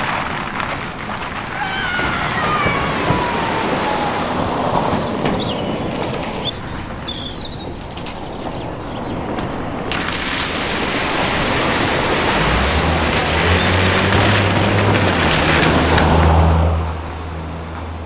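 Cars driving slowly through a shallow ford, with water sloshing and splashing around the tyres over the sound of running water. A car engine runs at a low, steady pitch for the last few seconds.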